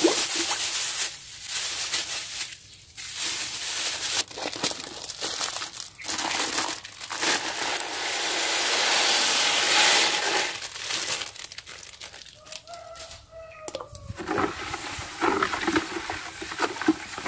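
Plastic bags crinkling as urea fertilizer granules and then table salt are poured in a hissing stream into a plastic bucket of water. Near the end, a bamboo stick stirs the mix, knocking and sloshing in the bucket.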